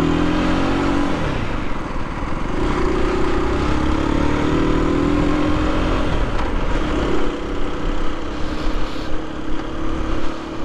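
Aprilia RS 125's single-cylinder four-stroke engine pulling away and accelerating. Its pitch rises and drops back at each upshift a couple of times, then it holds steady at low city speed.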